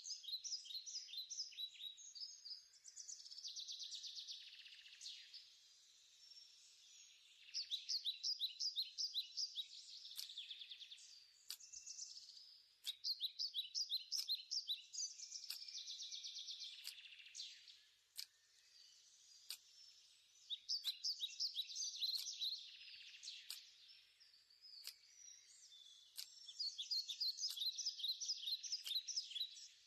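Birds singing in rapid, high-pitched trills, in phrases of about two to three seconds repeated with short pauses, with faint scattered clicks.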